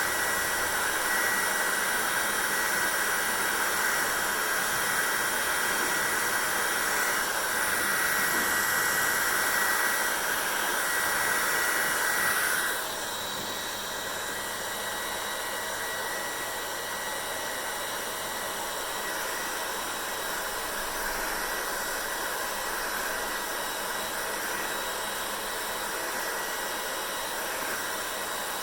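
Hair dryer running with a steady hiss and whine. A little under halfway through, its sound drops abruptly to a quieter, duller level and stays there.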